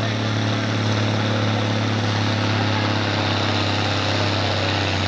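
Turbocharged diesel engine of a farm stock pulling tractor running at full throttle under heavy load as it drags a weight-transfer sled, a steady deep engine note that holds its pitch.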